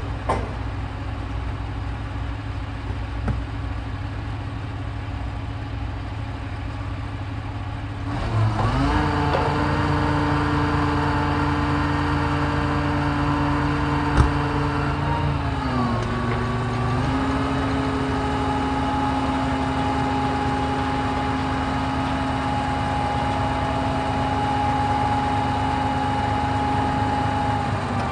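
Heavy work vehicle's engine idling, then revved up about a third of the way in and held at steady higher revs, easing down a little about halfway through, holding again, and dropping back near the end. A sharp knock sounds just after the start and another in the middle.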